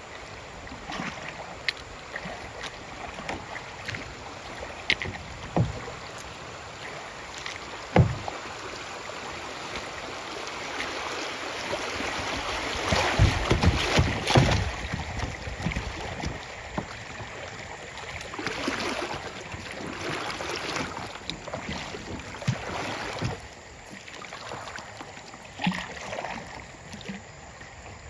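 Kayak paddle dipping and splashing in river water, with occasional sharp knocks. The splashing is loudest about halfway through.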